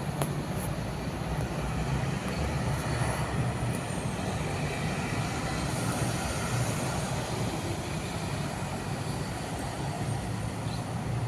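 Steady low rumble of vehicle noise, with a few faint, brief high-pitched sounds above it.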